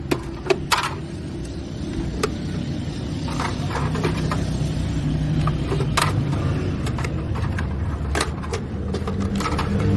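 A vehicle engine running steadily with a low drone, with scattered sharp metallic clicks and knocks over it, about a dozen.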